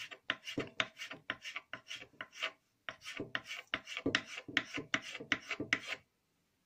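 Kitchen knife chopping green onion finely on a wooden cutting board, about four quick strokes a second, stopping about six seconds in.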